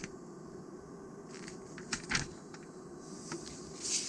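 Glossy magazine pages being handled and turned: a few soft paper rustles and light taps, with a louder rustle of the page turning near the end.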